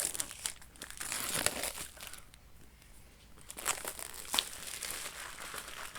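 Cellophane wrapping crinkling and tearing as it is pulled off a box, in bursts: busy for the first two seconds, a short lull, then more crinkling with a couple of sharp crackles a little past the middle.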